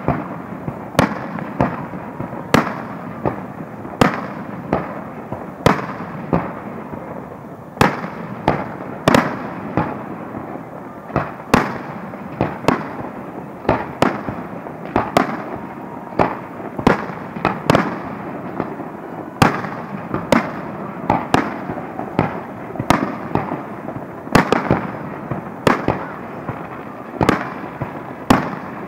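Aerial firework shells bursting in a steady barrage: sharp bangs about one or two a second, irregularly spaced, over a continuous rumbling haze of bursts.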